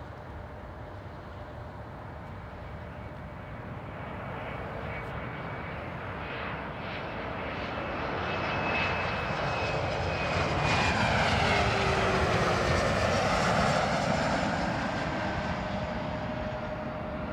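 Bombardier CRJ regional jet's twin GE CF34 turbofans passing low overhead on approach. The jet noise builds steadily and is loudest about two-thirds of the way through, when its whining engine tones drop in pitch as it passes. It then fades away.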